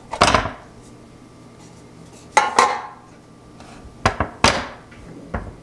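Metal loaf pan turned upside down and knocked against a wooden cutting board to release a baked bar, then the turned-out loaf handled on the board: a handful of sharp knocks, each with a short metallic ring.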